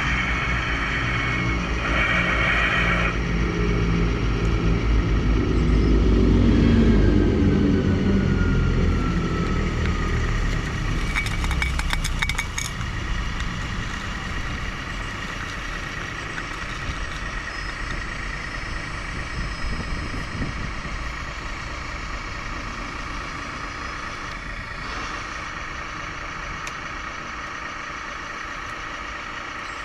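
Radio-controlled model construction vehicles running, with an engine-like drone that swells over the first several seconds and then eases to a lower steady level. Near the middle there is a short falling whine and a brief run of ticks.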